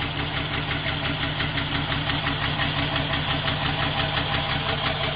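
Truck engine running steadily with an even, rapid pulsing beat.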